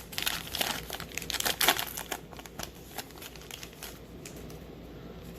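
Baseball card pack wrapper being torn open and crinkled in the hands: dense crackling for about two seconds, then a few scattered crinkles that die away about four seconds in.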